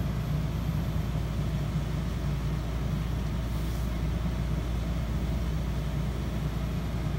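Dell XPS desktop's cooling fans running steadily as the computer boots, a constant whir over a low hum.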